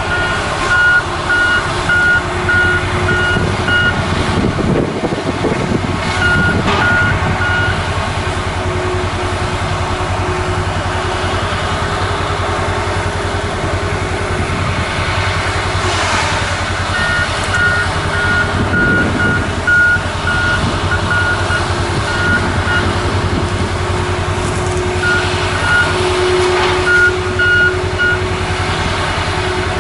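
Diesel logging machinery running steadily, with a reverse alarm beeping in several runs of a few seconds each as a machine backs up.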